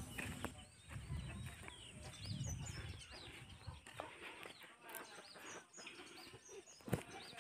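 Faint clucking of free-ranging chickens, with small birds chirping throughout and a single sharp tap near the end.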